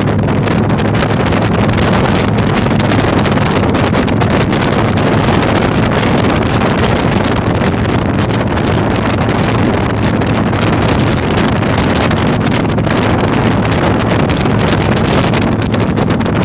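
Heavy wind noise on the microphone over the steady running of a Yamaha Virago 1100's V-twin engine at riding speed.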